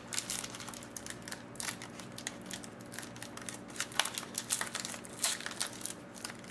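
Hockey cards and their pack wrapper being handled, with irregular crinkling and light clicks throughout.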